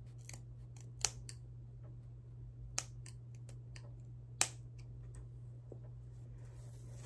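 Scissors snipping through braids: a few sharp snips, the loudest about one, three and four and a half seconds in, with smaller clicks of the blades between them.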